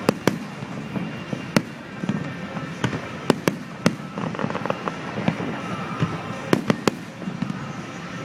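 Fireworks display bursting: about ten sharp bangs at irregular intervals, several in quick succession.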